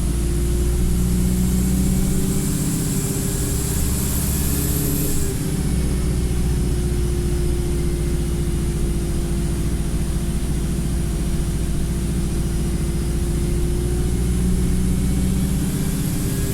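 Wright StreetLite single-deck bus engine running steadily, heard from on board, with a steady whine throughout and a high hiss that cuts off about five seconds in and comes back near the end. The bus is in limp mode and struggling.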